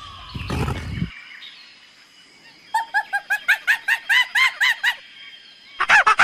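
A bird giving a rapid series of short, harsh repeated calls, about four or five a second, starting a little before halfway. Near the end a louder burst of calls sweeps downward in pitch. Before that, a low noisy sound cuts off about a second in.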